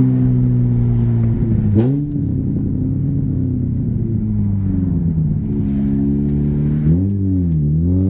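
Mazda RX-8 rotary engine running while the car drives, the revs dipping sharply and recovering about two seconds in, sagging slowly, then dipping again near the end before climbing.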